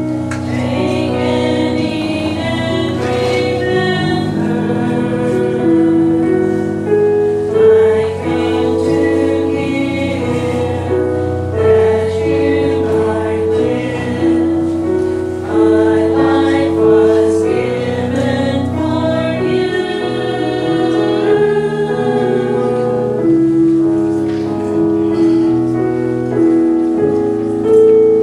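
Small mixed church choir of men and women singing together in parts, moving between held notes.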